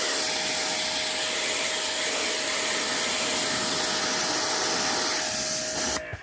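Pressure washer running with its water jet spraying as a steady hiss over a constant motor whine. It cuts off abruptly near the end as the spraying stops.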